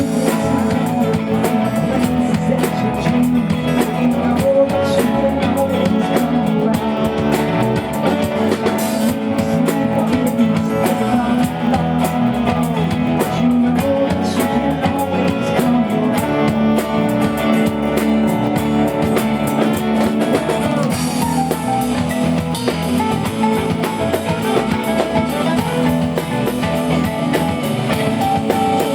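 Live band playing a song through the PA, with drum kit and guitar, as a sound-check run-through to set levels.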